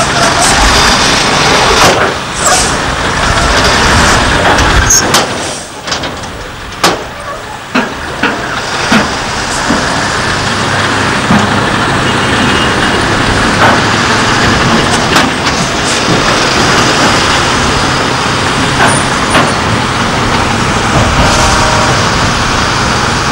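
Diesel engine of a Mercedes-Benz SK 3535 dump truck running steadily while its Meiller tipper body unloads soil, with scattered clanks and knocks. The sound drops away briefly about six seconds in, then returns to a steady run.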